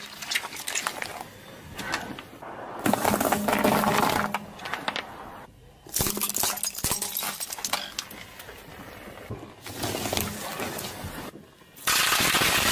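A car tyre rolling over and crushing a series of objects, each giving a stretch of cracking and crunching: squishy spider toys filled with water beads first, then firework rockets about six seconds in, then a pile of foil-wrapped chocolates crinkling loudly near the end.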